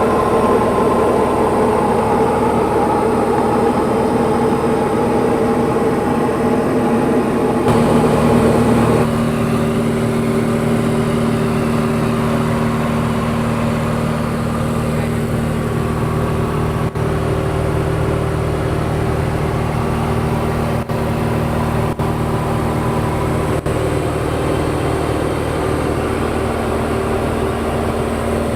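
Steady drone of a Diamond DA40's piston engine and propeller heard inside the cockpit. The pitch drops slightly about eight seconds in, as with a small power change.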